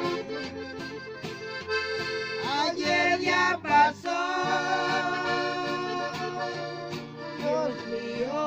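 Piano accordion playing a melody, with an acoustic guitar strumming chords and stepping bass notes underneath.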